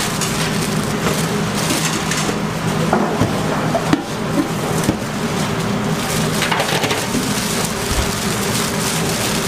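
Sweet and sour fried chicken sizzling and crackling in a large hot wok as sauce is ladled in and the pieces are tossed, with the scrape and clatter of the metal ladle and paddle. A steady low hum runs underneath.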